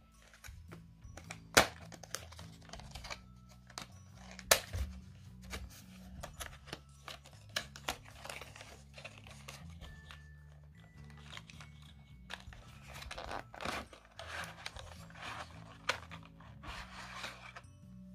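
A cardboard retail box being opened by hand, with sharp clicks and snaps and then rustling and tearing of packaging, loudest in two sharp clicks in the first few seconds. Quiet background music plays underneath.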